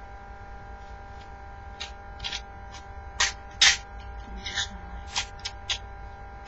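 Short, irregular scratchy rustles and scrapes of hands working with materials at a workbench, starting about two seconds in, over a steady electrical hum.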